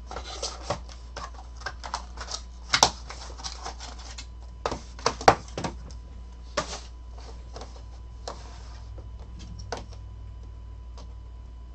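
A cardboard trading-card box and plastic-cased cards being handled on a tabletop: irregular taps, clicks and short rustles, with a couple of sharper knocks about three and five seconds in, thinning out near the end.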